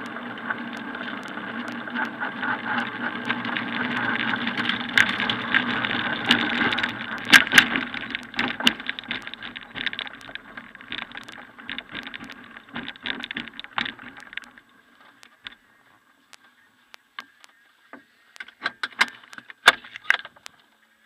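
PIK-20B glider rolling out after touchdown: its wheel rumbles over the ground and the airframe rattles, with many sharp knocks from bumps. The rumble dies away as the glider rolls to a stop about two-thirds of the way through, leaving scattered clicks and knocks in the cockpit.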